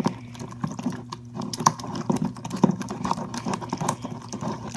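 A spatula stirring a bowl of slime mixture: a run of irregular small clicks and taps against the bowl, with a steady low hum underneath.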